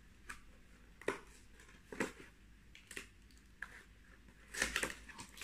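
Packaging being handled as small plates are unwrapped: short rustles and crinkles about once a second, with a louder cluster of rustling near the end.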